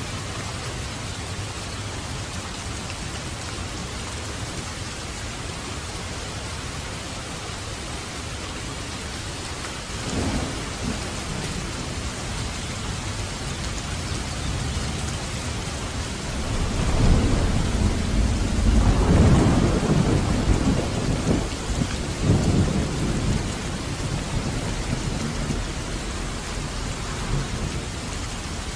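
Steady heavy rain. About ten seconds in a brief low rumble of thunder, then from about sixteen seconds a longer, louder rolling thunderclap that dies away after about eight seconds.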